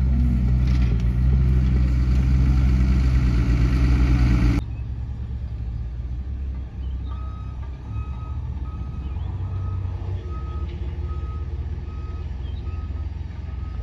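A heavy vehicle's engine runs close by for the first few seconds. After a sudden cut to a quieter engine, a reversing alarm beeps evenly at one pitch, about three beeps every two seconds, for the second half.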